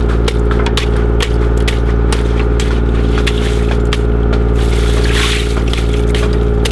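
An engine idling steadily under sharp, irregular knocks, a few a second, as a wooden stick beats mesh oyster bags; a brief rush of noise about five seconds in.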